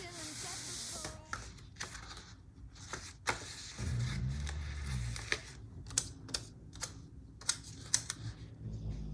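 Sticker sheets and paper being handled at a desk: a short rustle, then a series of irregular sharp clicks and taps as stickers are peeled and pressed onto a planner page.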